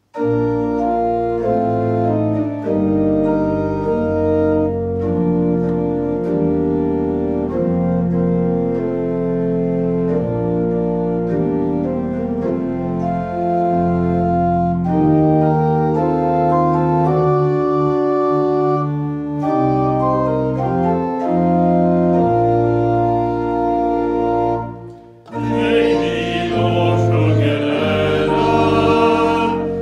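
Church pipe organ playing a hymn in full held chords. About 25 seconds in it breaks off briefly, then a few voices start singing the hymn with the organ accompanying.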